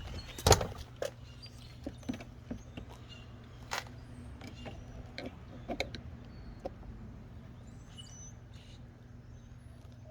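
Scattered clicks and taps of a hand tool and loose screws as screws are taken out of a car's interior door panel, the loudest about half a second in, over a steady low hum.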